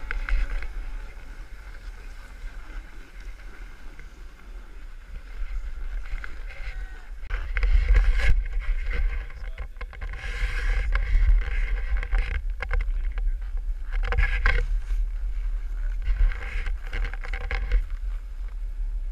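Wind rumbling on a pole-mounted action camera's microphone, with snowboards scraping and sliding on packed snow in several louder rushes.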